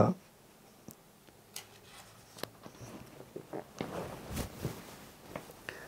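Faint rustling and scattered small clicks of book pages being handled and turned, thickening from about two seconds in.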